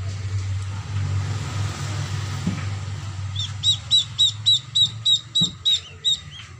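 Duckling peeping: a quick run of about ten high, short peeps, roughly four a second, beginning about halfway through, over a low steady hum.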